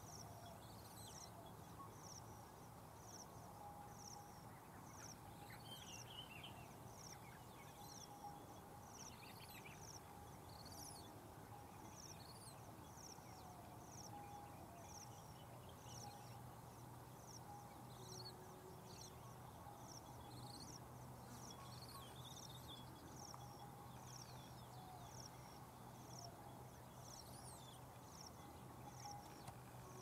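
Faint outdoor ambience: a short, high chirp repeated evenly about once a second, with scattered calls of other birds.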